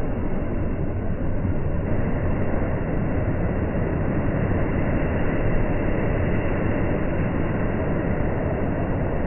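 Steady, even wash of rain and wet-street traffic noise, heavy in the low end with no distinct events.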